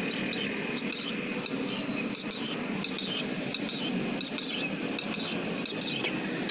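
Metal spatula scraping and stirring fried noodles in an iron wok, about two strokes a second, over steady sizzling and the rush of a high gas flame.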